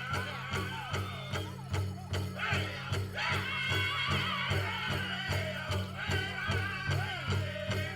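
Powwow drum group singing in high, wavering voices over a steady, fast beat on a large drum. The singing grows louder about three seconds in.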